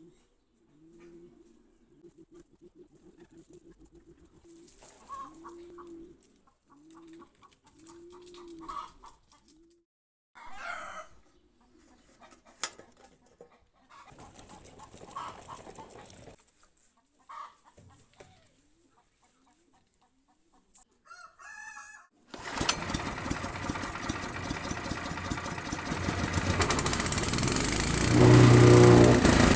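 Pigeons cooing and chickens clucking. About three-quarters of the way in, the wood chipper's 6.5 hp petrol engine starts suddenly and runs, getting louder near the end as it revs up.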